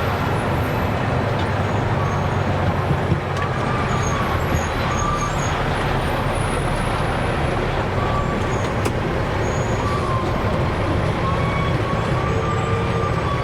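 Dump truck's diesel engine running steadily, with a constant low hum and a few faint thin tones above it.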